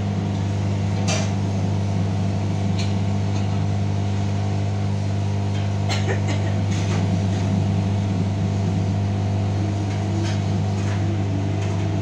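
Samsung front-load washing machine running with its drum turning: a steady, loud hum with a few sharp knocks. This is the drum noise that comes from worn drum bearings, which are to be replaced along with the seal.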